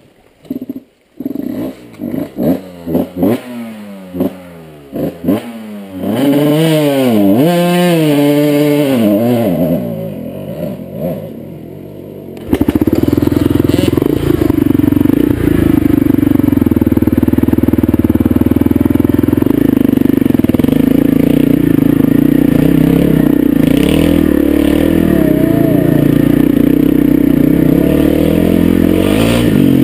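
Dirt bike engine blipped in short bursts, then revved up and down several times. From about halfway it runs loud and steady as the bike is ridden.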